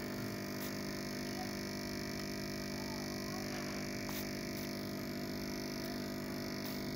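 A steady electrical hum made of many held tones, with a few faint clicks.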